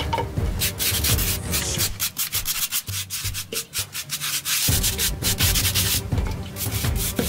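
Rapid, repeated scrubbing strokes of a brush working paint onto a plastered wall.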